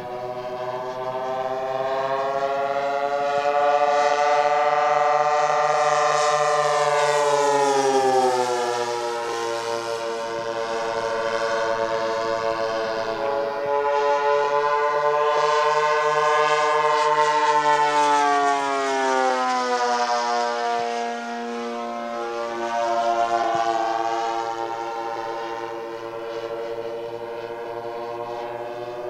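Twin internal-combustion engines of a large RC scale OV-10 Bronco in flight, running steadily as the model makes passes. The engine note swells and drops in pitch as it goes by, about 8 and again about 20 seconds in.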